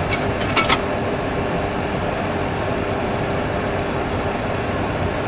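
Steady engine and airflow noise in a Boeing 737 Classic cockpit during the climb after a go-around, with a faint steady hum. A few short clicks in the first second.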